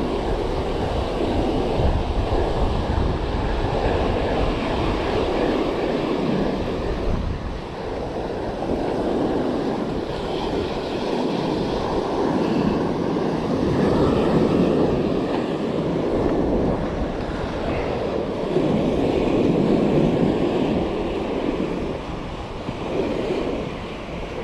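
Ocean surf breaking and washing up the beach, swelling and easing every few seconds, with wind rumbling on the microphone.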